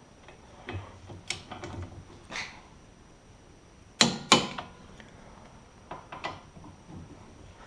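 Metal tools being handled and set down: scattered light clicks and clinks, then two sharp clanks about four seconds in, a third of a second apart, and a few softer knocks after.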